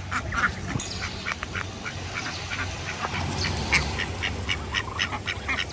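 A flock of Muscovy and domestic ducks feeding at a dish, making a quick run of short calls and pecks, several a second, growing busier toward the end.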